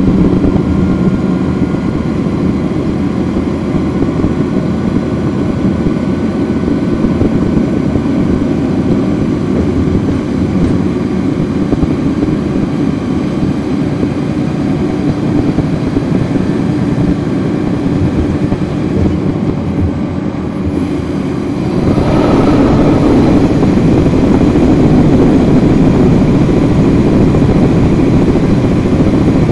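Cummins ISL9 diesel engine of a 2010 NABI 40-foot suburban transit bus, heard from the rear of the passenger cabin, running steadily. It eases off briefly, then about two-thirds of the way through gets suddenly louder as it comes under load and the bus pulls harder.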